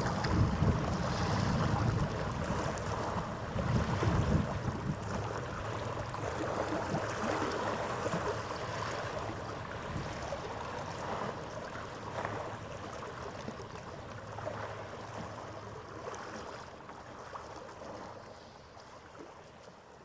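Harbour ambience: wind and water noise with a faint steady hum, gradually fading away.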